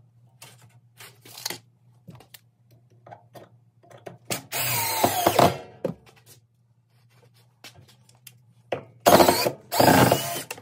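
A power drill run in three short bursts, one of about a second and a half near the middle and two briefer ones near the end, with light clicks and knocks between them from work on the steel and wood form.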